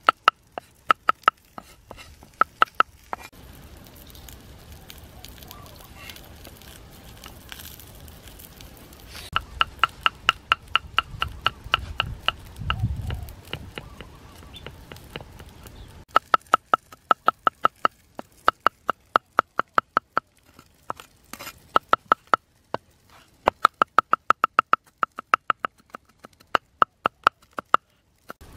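Steel cleaver mincing chillies and then garlic on a round wooden chopping board: runs of quick chops, about five a second, each with a short metallic ring, broken by pauses of a few seconds.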